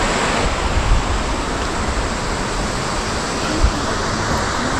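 Steady rushing wind noise buffeting the microphone, with uneven low rumbles and one brief low bump a little past halfway.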